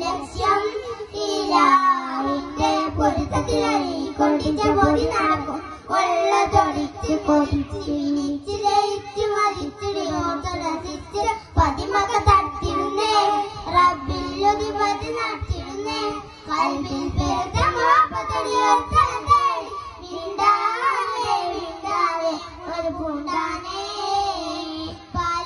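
A group of young boys singing a Mappilappattu (Malayalam Mappila song) in unison into microphones, amplified through a PA.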